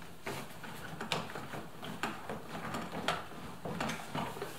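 Plastic inner door trim panel of a Toyota RAV4's driver's door clicking and knocking irregularly as it is worked loose from the door, with sharper knocks about a second in and again about three seconds in.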